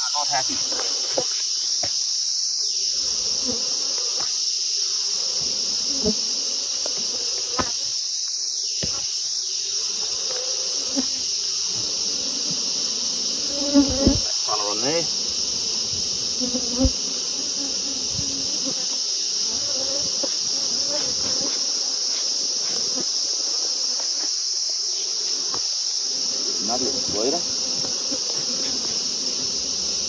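A steady high-pitched insect drone runs throughout. Over it, honey bees from a defensive hive buzz close past several times, each pass swelling and fading within about a second. A few sharp knocks come about 14 and 17 seconds in as the hive boxes are handled.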